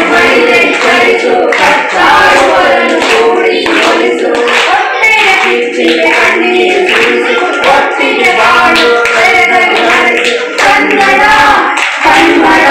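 A group of voices singing a song together in chorus, with a few claps.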